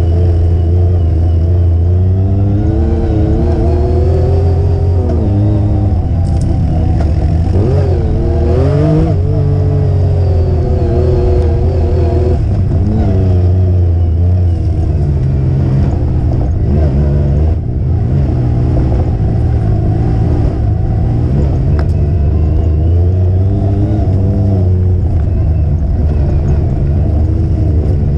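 Off-road vehicle engine running along a dirt trail, its pitch rising and falling constantly with the throttle, over a deep steady rumble.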